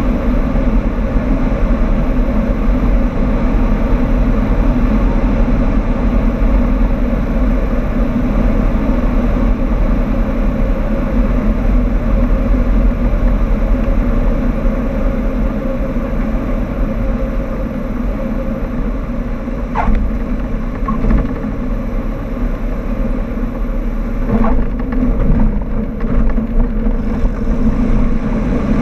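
Cessna 152's four-cylinder engine and propeller drone steadily, heard from inside the cockpit, during the approach and landing. A few brief sharper sounds come about two-thirds of the way through.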